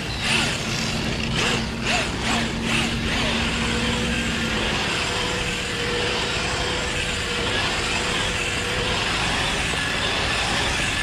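Brushless-motored RC truck (Redcat Gen8 Scout II, Fuze 5800 kV motor) driving on sand, its motor whining and its tyres churning. Several short bursts of throttle come in the first three seconds, then a steady run as it spins in circles throwing up sand.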